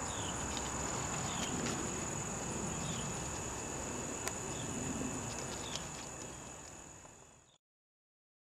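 Insects trilling steadily in a high, unbroken tone, with short falling chirps every second or so and one sharp click about four seconds in. The sound fades out near the end.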